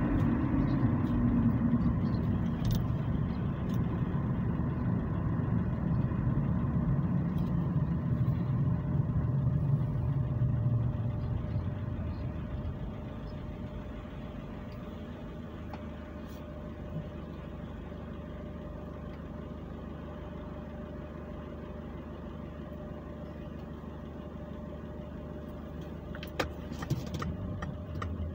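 Car driving, heard from inside the cabin: road and engine noise falls in pitch and fades as the car slows over about the first twelve seconds. The engine then idles steadily while the car stands still in traffic, with a couple of sharp clicks near the end.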